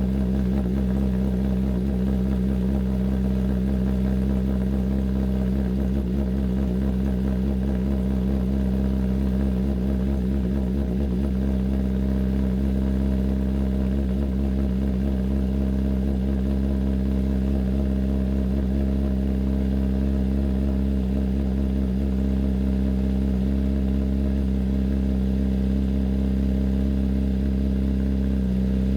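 Kawasaki ZX-10R's inline-four engine idling steadily through a newly fitted SC Project CRT exhaust.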